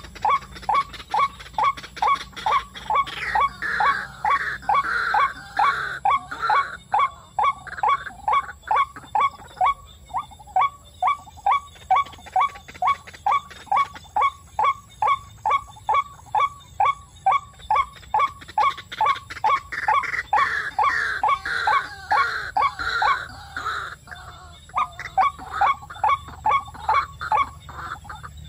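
White-breasted waterhen calling: a long, steady run of short, harsh repeated notes, about three a second. A second, higher and more wavering bout of calls joins a few seconds in and again about two-thirds of the way through.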